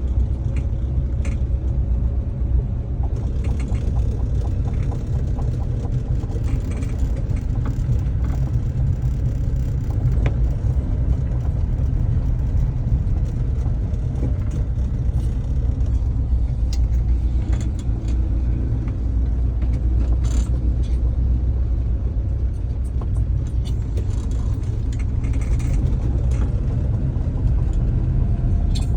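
Citroën DS driving in circles with a steady low rumble and scattered faint clicks, among them the noise from the front right that comes while turning.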